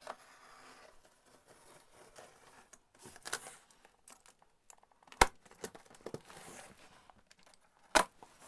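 A utility knife slitting packing tape on a cardboard box, with the tape tearing and the cardboard scraping and rustling. Two short, sharp clicks, about five seconds in and near the end, are the loudest sounds.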